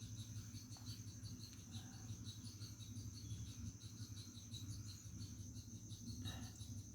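Faint crickets chirping in a steady, pulsing high trill over a low steady hum.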